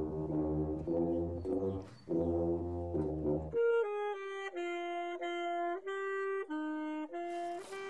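Two tubas playing a low tune together with a brief break. About three and a half seconds in, a saxophone takes over with a solo melody.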